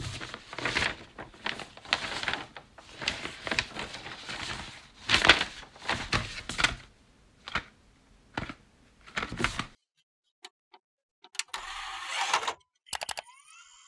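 Sheets of paper rustling and sliding across a desk in quick, repeated swishes. Near the end, a desktop computer is switched on: a short hiss and a few clicks, then a rising tone that settles into a steady hum.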